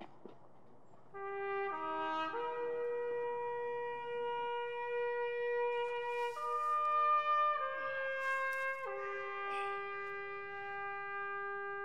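A slow solo melody on a wind instrument, starting about a second in: long held notes that step from one pitch to the next.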